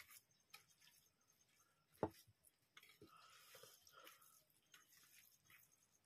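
Faint sounds of eating rice by hand from steel plates: scattered soft clicks and squishes of fingers working the rice, with one sharper knock about two seconds in.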